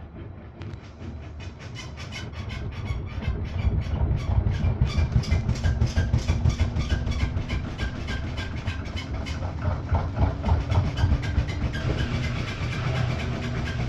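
Washing machine running with a rhythmic knocking clatter, about four knocks a second, that grows louder over the first few seconds and then holds steady. It is the unusual noise the washer is making.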